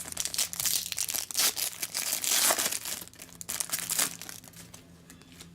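Crinkly trading-card packaging being handled, with dense crinkling and rustling that dies down after about four seconds.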